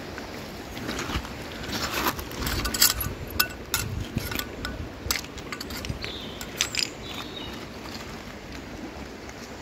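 Scattered sharp clicks and knocks of pebbles and pottery shards on a stony riverbed, thinning out after about seven seconds, over a steady hiss of running river water.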